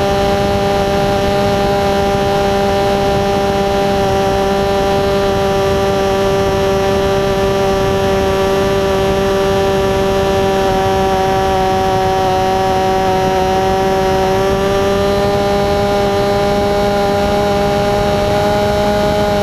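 Radio-controlled model plane's motor and propeller running steadily, heard close up from a camera mounted on the plane, as a steady hum with several tones. Its pitch sags a little about two-thirds of the way through, then rises again.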